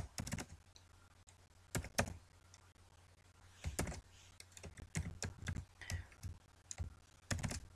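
Keystrokes on a computer keyboard: scattered clicks typed in short runs, with pauses of a second or more between them.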